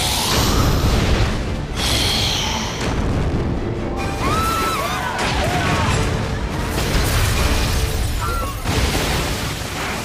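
Dramatic soundtrack music over booming explosions and a continuous rumble. Brief wavering cries, like screams of fleeing people, come in about four seconds in and again near the end.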